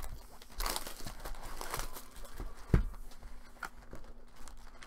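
Plastic shrink wrap being torn and crinkled off a trading-card box, with a single thump a little under three seconds in.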